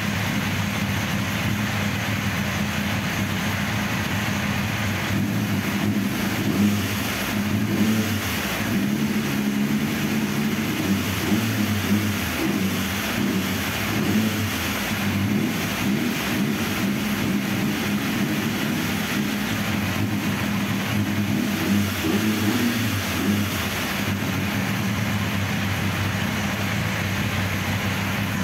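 Benelli TNT 899's three-cylinder engine running steadily on the stand, with a few light rises in revs, after its cylinder head was refitted and the valve timing corrected.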